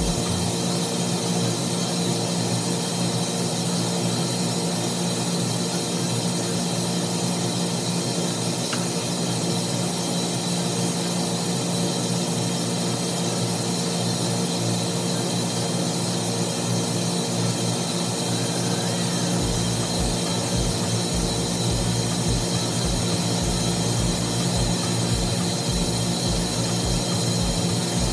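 Steady, unchanging drone of running machinery in a building's steam room, several fixed hum tones over a hiss. Irregular low thumps join in about two-thirds of the way through.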